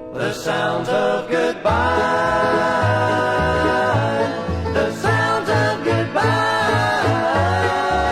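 Bluegrass-style country band music: banjo and guitar picking with long held melody notes over a steady pulsing bass.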